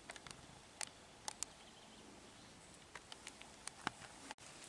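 Quiet outdoor background with about a dozen faint, sharp, irregular clicks and ticks, bunched in the first second and a half and again after about three seconds. The sound drops out for an instant near the end.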